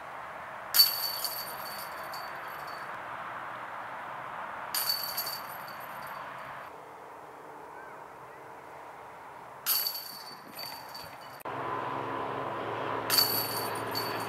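Four disc golf putts, one after another, striking the chains of a metal disc golf basket. Each is a sudden metallic clash that jingles and rings for a second or two. The first is the loudest.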